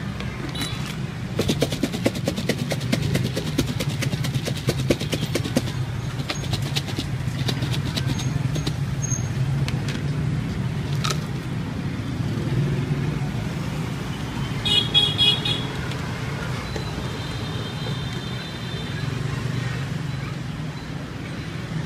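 Steady street-traffic rumble with a short horn toot about fifteen seconds in and a fainter one soon after. In the first few seconds there is a rapid clatter of light clicks from plastic containers and a spoon being handled.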